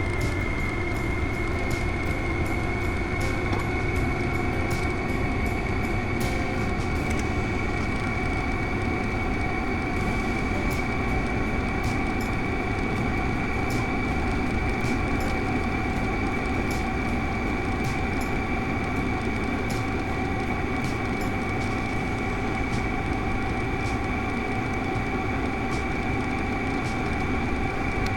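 VEVOR 8kW diesel air heater running: a steady rumble with a strong high fan whine that creeps slightly up in pitch, and faint ticks throughout.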